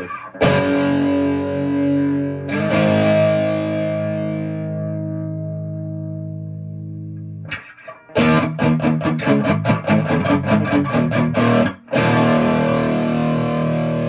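Electric guitar through an overdriven Sun 200S tube amp, with an added 12AX7 gain stage and a cathode-follower effects loop in the signal path. Two chords are struck and left to ring, then a fast run of strums comes about eight seconds in, then another ringing chord. The overdrive has a slowly changing, phasey clipping that the player takes for blocking distortion.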